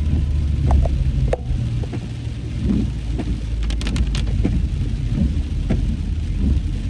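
Heavy rain pattering on a car, heard from inside the cabin over the low, steady rumble of the car driving in a downpour, with a brief run of sharp clicks about four seconds in.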